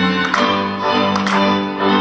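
Instrumental folk music for the odzemek dance, led by strings, with held notes and a few sharp accented strokes on the beat.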